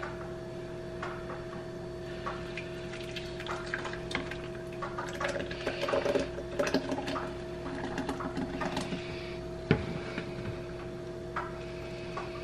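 Thick, creamy ice cream base poured from a plastic mixing bowl into the frozen freezer bowl of a Cuisinart ice cream maker, trickling and splashing unevenly, with a single knock a little before the end. A steady low hum runs underneath.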